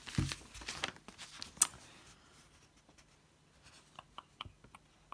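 Paper instruction leaflet rustling as it is picked up and unfolded, with a sharp crackle about one and a half seconds in, then a few light ticks near the end.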